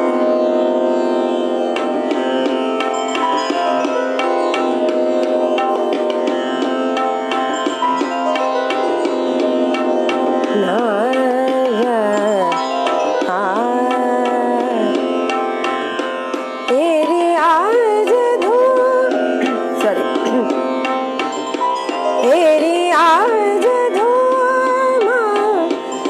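A woman singing an Indian film-style song with ornamented, gliding phrases over instrumental accompaniment with a steady drone; the accompaniment holds alone at first and her voice comes in about ten seconds in, growing louder from about halfway.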